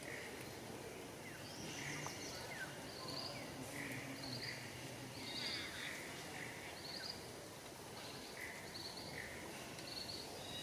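Birds chirping: many short, repeated high notes at two pitches, several a second, over a steady background hiss.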